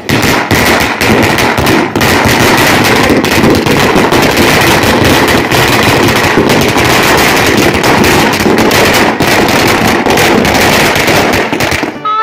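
Firecrackers going off in a rapid, unbroken crackle of loud bangs for about twelve seconds, stopping just before the end.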